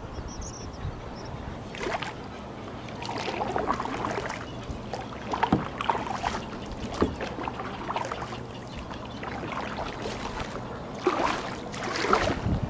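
Kayak paddle strokes: the paddle blades dipping into and splashing out of the water in irregular strokes every second or two.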